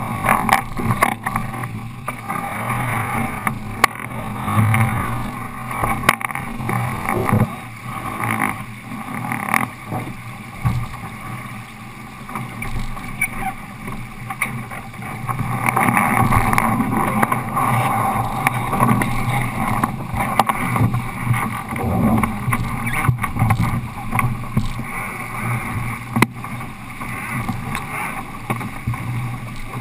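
Sailing yacht under way: a steady rush of noise with scattered sharp knocks and clicks.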